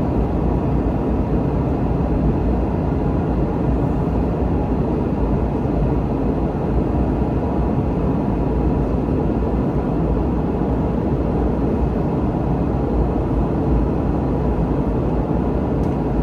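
Steady roar inside the cabin of a Boeing 717 airliner in flight: its rear-mounted Rolls-Royce BR715 turbofans and the rush of air, deep and even, with a faint steady hum.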